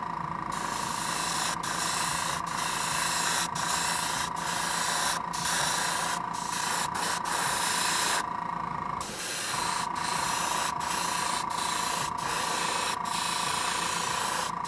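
Airbrush spraying white paint at high air pressure: a steady hiss broken by many short gaps and a longer pause about eight seconds in, with a steady whistle running through it.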